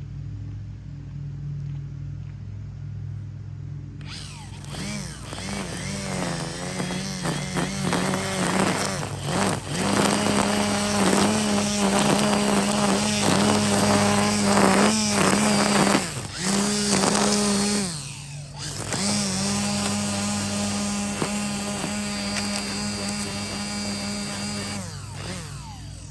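Cordless Milwaukee M18 Quik-Lok power head with string trimmer attachment running: the motor spins up about four seconds in with a high whine that wavers in pitch. It cuts out briefly near the middle, runs again, and winds down near the end.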